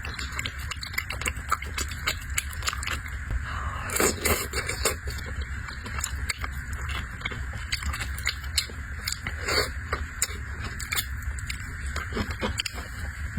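Close-miked eating sounds of a person chewing octopus and shrimp: frequent wet clicks and smacks over a steady low hum.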